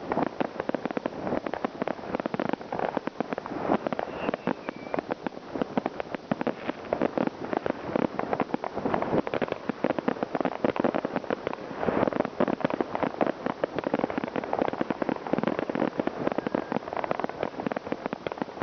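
New Year's Eve fireworks and firecrackers going off all around: a dense, unbroken crackle of many small bangs, with a somewhat heavier bang about twelve seconds in.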